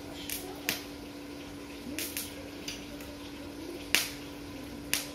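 Stick electrode being tapped and scratched on steel to strike an arc with a small 450-watt electric welder: short, sharp arc crackles that do not hold, the loudest about four seconds in, over a steady low hum.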